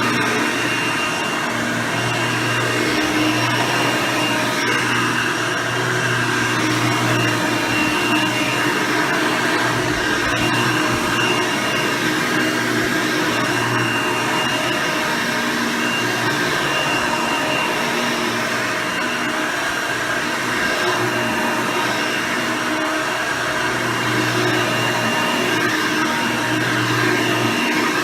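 Hoover Elite II 6.0 soft-bag upright vacuum cleaner running steadily while vacuuming. Its 6-amp motor and nine-blade fan make a steady whine, with a low hum that swells and dips.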